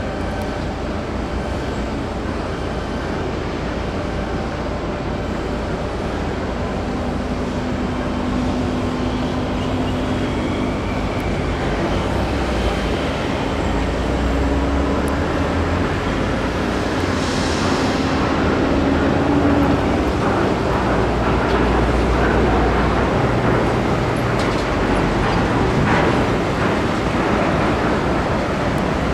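Steady mechanical rumble of shipyard machinery, growing slightly louder, with a low steady hum joining for several seconds in the middle.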